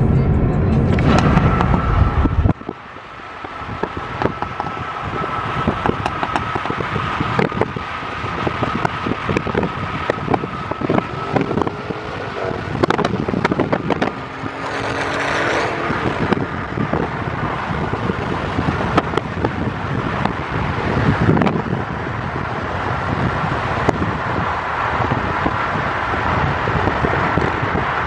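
Highway driving noise from a moving car: a steady rush of tyre, road and wind noise with frequent short crackles on the microphone. A deep low rumble stops suddenly about two and a half seconds in.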